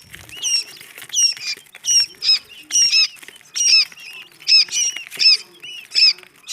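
Quail chicks peeping: loud, high cheeps with bending pitch, about two a second, several voices overlapping.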